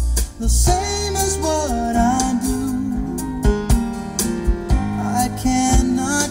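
Music played over a custom car audio system with component speakers and a 12-inch subwoofer in a ported box: a sung melody and guitar over deep, steady bass.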